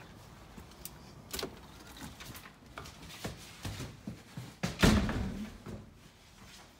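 Scattered footsteps and light knocks, then a door shutting with one loud thud about five seconds in that rings on briefly.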